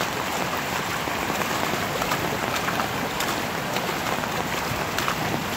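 Heavy rain falling steadily, with many sharp ticks from single drops hitting close by.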